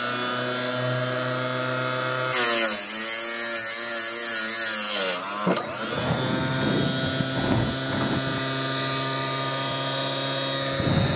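Harbor Freight mini chop saw's small electric motor running with a steady whine. About two seconds in, its blade cuts through a brass rifle case for about three seconds, a loud hissing grind as the motor's pitch sags under the load. The motor then runs free again.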